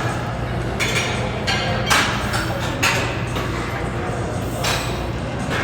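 A few sharp metallic clinks from gym equipment, some ringing briefly, over a steady low hum and indistinct voices.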